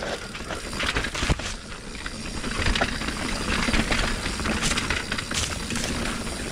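Steel hardtail mountain bike (Norco Torrent HT) rolling down a wet trail: steady tyre and trail noise with rattling and sharp knocks from the bike over bumps.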